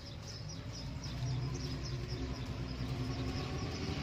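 A motor vehicle engine running with a steady low hum that grows a little louder about a second in. Over it, a short high chirp repeats about four times a second.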